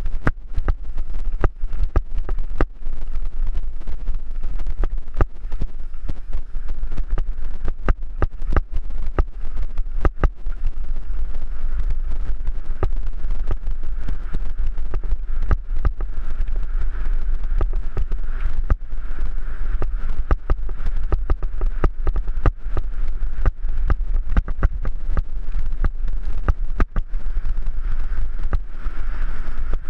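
Mountain bike descending a loose, stony gravel trail: steady wind buffeting the helmet camera's microphone, with tyre noise on gravel and frequent sharp rattles and knocks as the bike jolts over the rocks.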